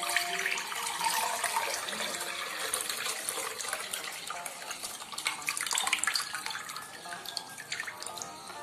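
Coconut water pouring from a cut-open green coconut into a glass bowl: a steady splashing stream that thins toward the end.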